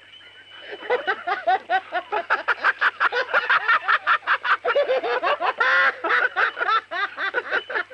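Laughing kookaburra calling: a long run of rapid, chuckling hoots that starts about a second in, builds up and breaks off right at the end.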